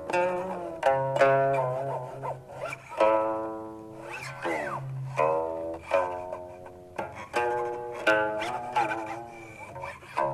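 Solo guqin (seven-string Chinese zither): a slow series of plucked notes that ring and fade, some wavering in pitch and one about halfway through gliding as the stopping hand slides along the string.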